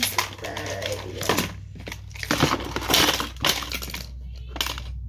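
Rummaging through belongings by hand: irregular rustling, knocks and clatter of papers and small objects being picked up, moved and set down.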